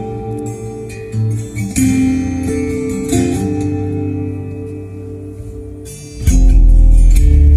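Guitar music played back through a homemade speaker box for computer sound. About six seconds in, a heavy, loud bass line comes in.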